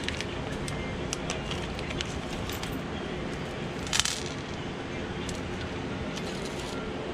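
Small clicks and taps of metal parts being handled on a steel workbench. About four seconds in there is a short crinkle of a plastic hardware bag. A steady shop hum runs underneath.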